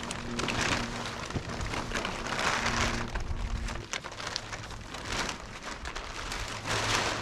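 Slow, uneven crunching in deep snow, a swell of noise every one to two seconds, with a faint low hum coming and going beneath it.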